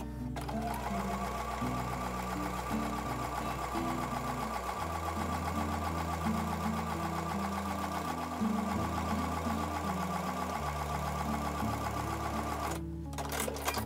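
Electric sewing machine stitching a seam at a steady fast rate. It picks up speed as it starts, runs for about twelve seconds and stops about a second before the end. Soft acoustic guitar music plays underneath.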